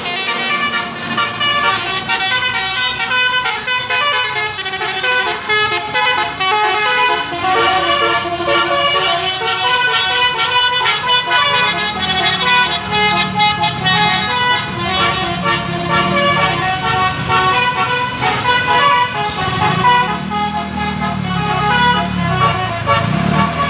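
Bus telolet horns, multi-tone musical air horns, playing quick melodic runs of short notes over and over. From about halfway, a lower sound rises and falls in pitch beneath them.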